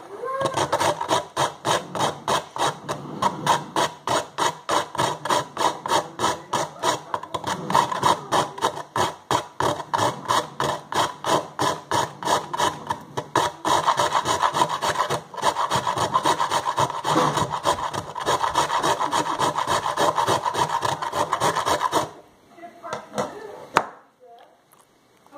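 An ice cube scraped down a flat metal hand grater in quick, rhythmic strokes, several a second, making a steady rasping grate. The strokes stop near the end, leaving a few faint light handling sounds.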